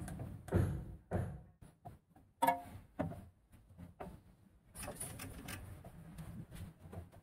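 Metal parts being handled on a mini lathe as the tailstock is brought up to a tap held in the chuck: several separate knocks and one sharp ringing clink about two and a half seconds in, then a quieter steady noise for a couple of seconds.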